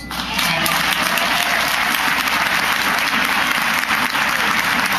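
Audience applauding: dense, steady clapping that breaks out at once and holds at an even level throughout.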